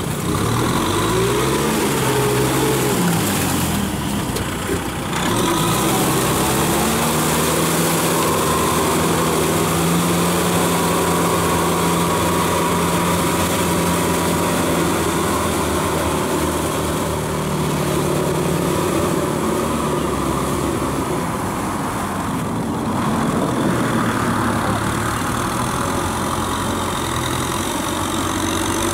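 Kubota tractor's diesel engine working under load as it drives a rear rotary tiller through a flooded rice paddy. The engine speed wavers for the first few seconds, then holds steady.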